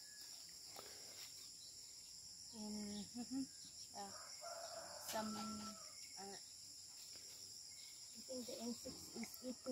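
Faint rooster crowing, two crows about two seconds apart, over a steady high chirring of crickets.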